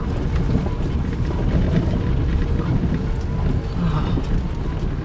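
Tata Nexon on the move: a steady low rumble of road and engine noise.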